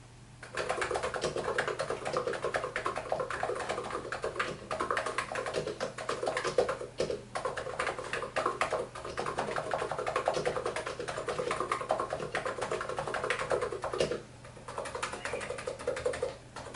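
ABKO HACKER K985P electro-capacitive (contactless) keyboard with 55 g switches and double-shot PBT keycaps, typed on quickly with both hands: a dense, continuous run of keystrokes starting about half a second in, with a short lull near the end.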